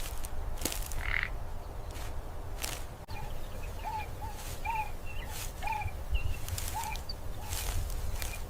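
Short, repeated animal calls, about eight in quick succession through the middle, over a low rumble and a regular rustling stroke roughly once a second.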